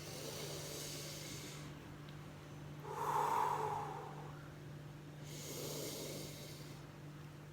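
A woman taking slow, deep breaths under a towel while inhaling steam from a bowl of hot cinnamon water: three long, airy breaths about a second and a half apart.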